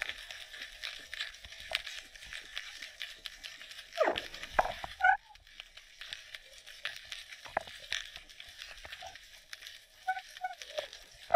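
Underwater sound picked up by a GoPro in its housing: a steady crackle of small clicks over a hiss, broken by a few short high tones and, about four seconds in, a louder tone that slides down and back up.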